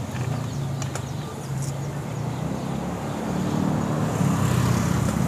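Steady low hum of an idling engine, growing a little louder about three seconds in, with a couple of faint light clicks about a second in.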